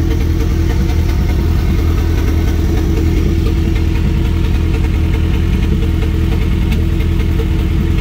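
Turbocharged Honda Prelude four-cylinder engine idling steadily.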